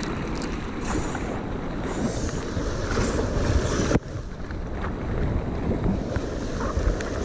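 River water rushing around a kayak, mixed with wind buffeting the camera microphone. The sound is a steady, rumbling noise, with a sudden brief drop about four seconds in.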